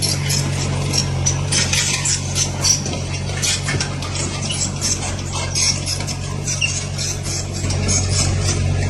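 Heavy earth-moving machine's engine running steadily as a low drone, with frequent short high clicks and rattles over it.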